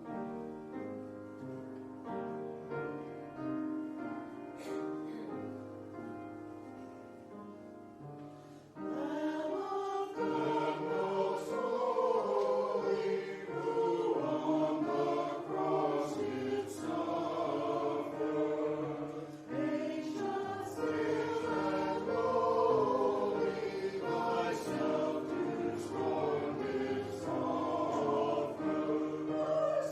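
Church choir singing, soft and sustained for the first nine seconds or so, then fuller and louder.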